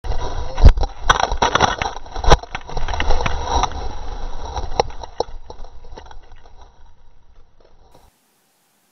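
Mountain bike crashing on a dirt trail: rattling and scraping over the ground, with a heavy thump just under a second in and another at about two and a half seconds as the bike and rider go down, then tumbling and scraping in the dirt that fades out.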